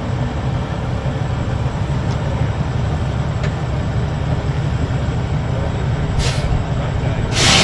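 Heavy harvest machinery running steadily with a low engine drone, like a combine harvester heard on board. A short hiss comes about six seconds in and a louder one near the end.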